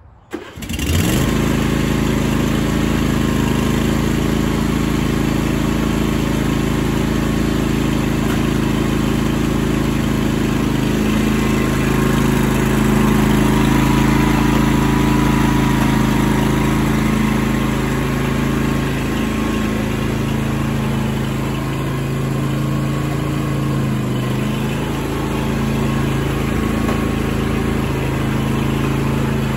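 Riding lawn tractor's engine running steadily, its pitch shifting slightly a few times.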